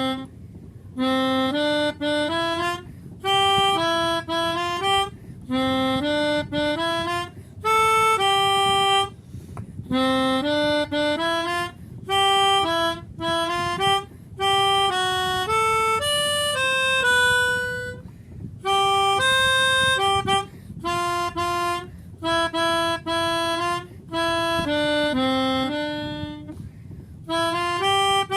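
Instrumental music: a melody of separate sustained notes played in short phrases, each followed by a brief gap and repeated over and over.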